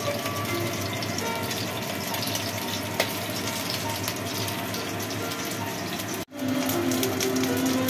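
Hot oil sizzling around a salmon head frying in a wok: a steady hiss with small crackling pops. The sound cuts out for an instant about six seconds in.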